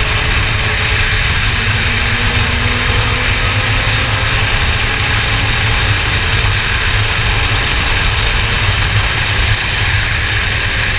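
Formula Yas 3000 single-seater race car running on track: a steady loud rush of noise with a heavy low rumble, and the engine's pitch faintly and slowly rising and falling underneath.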